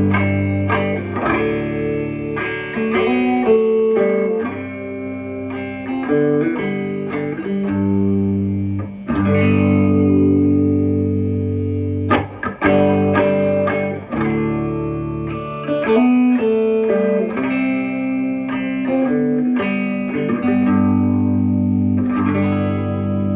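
Electric guitar with humbucking pickups played through a Fender Tone Master Deluxe Reverb amp and its stock Celestion Neo Creamback speaker, with a barely-on Klon-style overdrive pedal in the chain. It plays a run of strummed chords and picked single notes.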